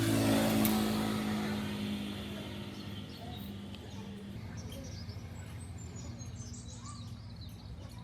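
A steady, motor-like low hum that swells in the first second and then slowly fades, with birds chirping in the second half.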